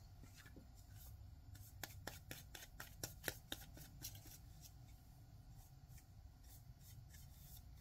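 Near silence: faint room tone with scattered light clicks and taps as a paintbrush and a small metal tin are handled, bunched a couple of seconds in and again near the end.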